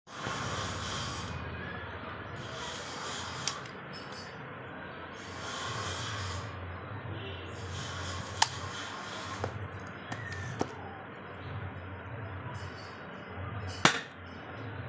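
An airsoft gun making six sharp snaps at irregular intervals, the loudest near the end, over a breathy background hiss that swells and fades.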